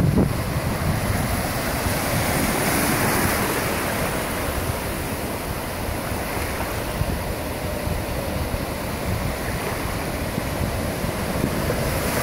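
Ocean surf breaking and washing ashore in a steady wash, with wind buffeting the microphone.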